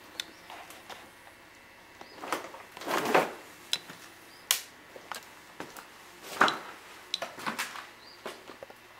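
Footsteps crunching over debris and going down stairs, in irregular steps and scrapes, with a few faint high squeaks between them.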